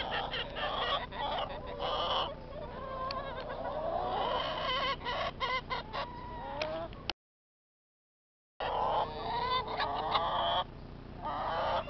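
A flock of hens clucking and calling over one another in a busy, continuous chatter. The sound cuts out completely for about a second and a half midway, then the clucking resumes.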